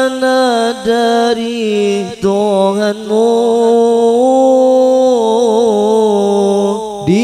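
A man's solo voice chanting an Islamic devotional melody into a microphone through loudspeakers, unaccompanied, holding long notes with wavering ornaments. The voice rises to a higher held note about four seconds in and breaks off near the end.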